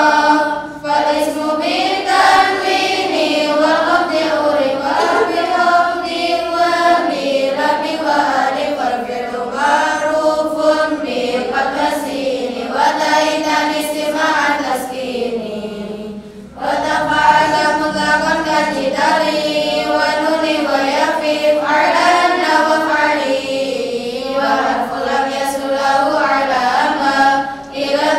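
A group of girls chanting Arabic grammar verses (nazham) in unison to a sung melody, the lalaran recitation used to memorise the text. Short breaks for breath come about a second in, around the middle, and near the end.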